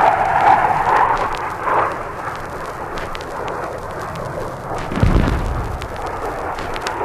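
F-100 Super Sabre jet noise fading in the first two seconds, then a bomb ground burst about five seconds in: a sudden deep boom that rumbles away. Scratches and pops from the old vinyl LP run throughout.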